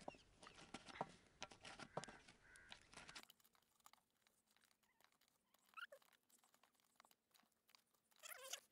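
Faint crinkling and small clicks of crumpled aluminium-foil balls being handled and pushed into a hole in a tin box, stopping about three seconds in. After that, near silence with a couple of faint brief sounds.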